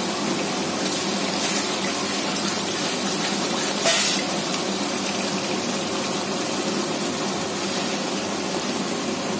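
Onion-tomato masala with cashew paste sizzling and bubbling in oil in a kadhai on high flame, a steady frying hiss as it is stirred with a spatula, with a short scrape of the spatula against the pan about four seconds in. The masala is being roasted (bhuna) until grainy with the oil separating.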